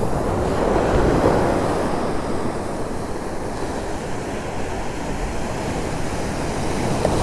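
Ocean surf breaking and washing up a sandy beach, a steady rush of waves, with wind buffeting the microphone.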